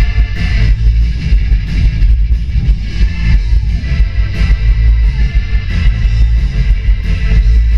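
Live rock band playing loud: electric guitar, bass and drum kit, with a heavy, booming low end.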